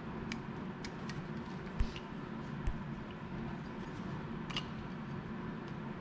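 Scattered light metallic clicks and ticks from a piston ring expander spreading a compression ring onto an engine piston, over a steady workshop hum, with two soft low thumps about two and three seconds in.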